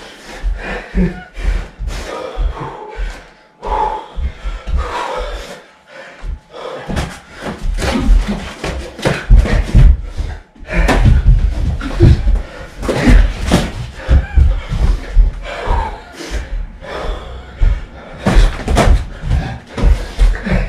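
Boxing gloves thudding and slapping in flurries as two people spar, with heavy low thumps and short lulls between exchanges.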